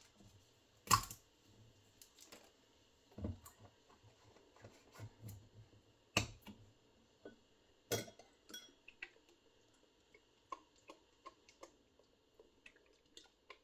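Light kitchen handling sounds: scattered small clicks and ticks of a sauce bottle, bowl and utensils, with a few louder knocks about a second in, around three, six and eight seconds.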